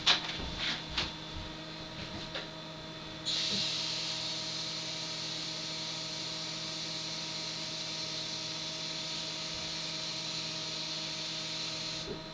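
Bathroom tap running steadily for about nine seconds, heard through an open door from the next room as an even hiss. It starts suddenly about three seconds in and stops just before the end, after a few footsteps and knocks at the start.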